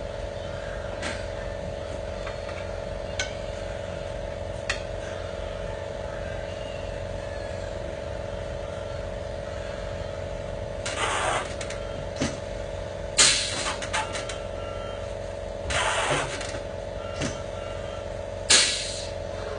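An engine running steadily with a constant hum, and four short hissing blasts of compressed air in the second half, the loudest a little past the middle and near the end. A few light clicks fall in between.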